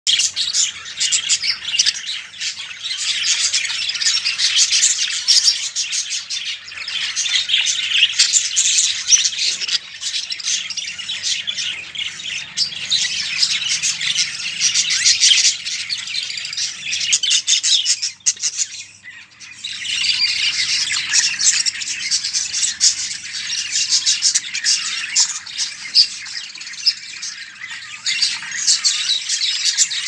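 Budgerigars chattering and chirping continuously, with a brief lull a little past halfway.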